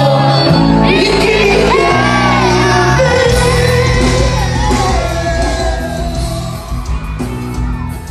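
Forró band playing loud live music with a singer's voice gliding over the band, echoing in a large hall.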